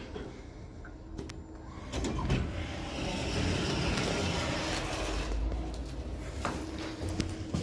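Schindler 3300 lift's sliding doors in motion: a broad rushing noise starts about two seconds in and runs for about three seconds before easing off, with a few sharp clicks near the end.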